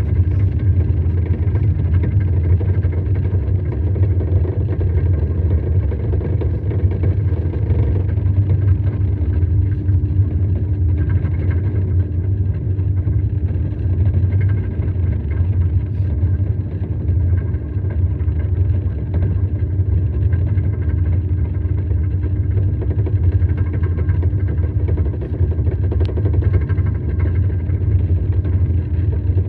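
A vehicle or machine running steadily: a constant low rumble with a steady hum over it, unchanging throughout.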